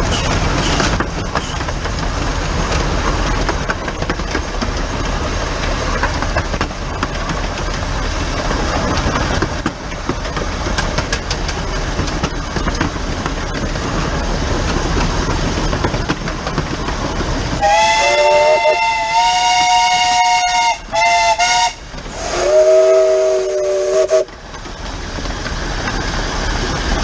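15-inch gauge steam locomotive running, close up on its pipework, with a steady rush of running noise. About two-thirds of the way through, a steam whistle gives a long high blast that breaks into short toots, and then a second, lower-pitched whistle sounds for a couple of seconds.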